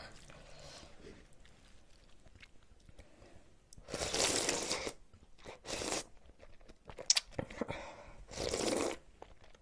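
Slurping ramyeon broth from a bowl held at the lips: a long slurp about four seconds in, a shorter one soon after, and another long slurp near the end, with small mouth clicks between.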